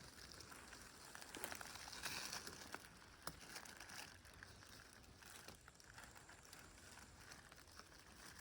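Faint rustling and crackling of forest-floor litter being disturbed, with a few sharp snaps.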